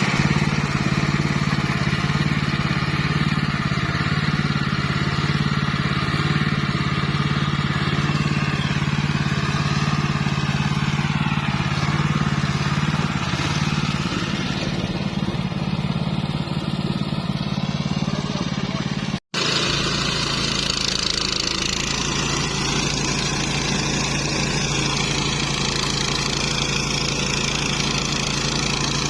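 Engine of a homemade flail mower running steadily at a constant speed. The sound drops out for an instant about two-thirds of the way through, then carries on.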